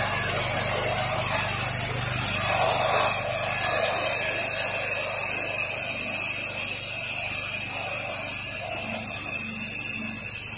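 Pressure-washer gun spraying a narrow fan of sodium hypochlorite wash solution up onto vinyl siding: a steady hiss, with the pressure washer's steady machine hum underneath.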